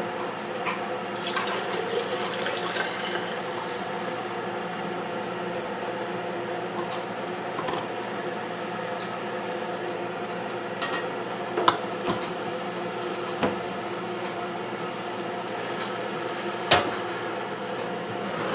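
Warm milk inoculated with yogurt pouring through a canning funnel into glass jars, over a steady hum. A few sharp glass clinks come in the second half.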